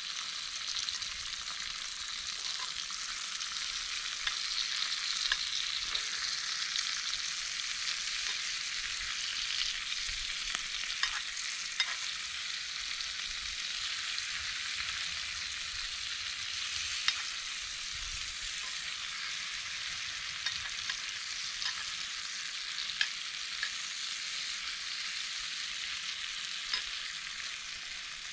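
Food frying in a pan, a steady sizzle with scattered sharp pops.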